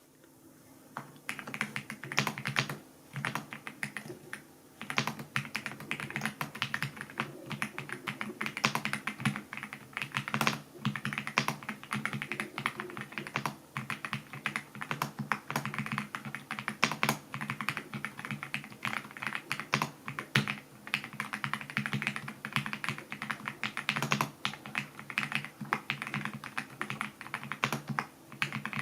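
Fast, continuous typing on a Dareu EK87 Pro mechanical keyboard with pre-lubed Sky Blue linear switches and double-shot PBT keycaps: a dense, uneven stream of key clacks that begins about a second in.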